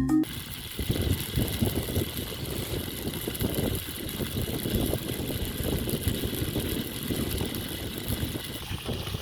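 Fish deep-frying in hot cooking oil: a steady sizzle with a dense crackle.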